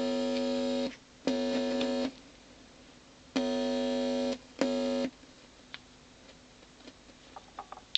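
Loudspeaker of a home-built germanium-transistor amplifier giving a steady buzzing hum that switches on and off four times, each burst under a second, as a transistor is pushed into and out of its socket, with small handling clicks between bursts.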